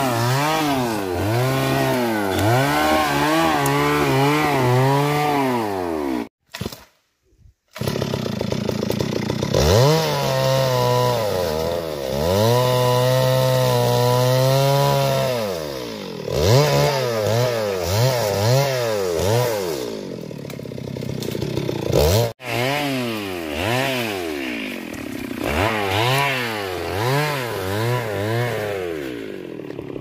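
Two-stroke chainsaw cutting wood, its engine pitch rising and falling again and again as it revs and is pulled down under load. The sound breaks off briefly about six seconds in and again for an instant a little past twenty seconds.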